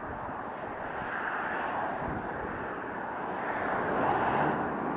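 Road traffic passing: vehicles going by in a steady rush that swells and fades, loudest about four seconds in.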